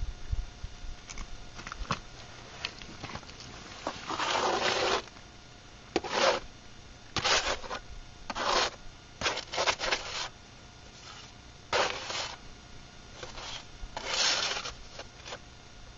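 A series of short, irregular scraping and rubbing noises, each up to about a second long, with quieter gaps between them.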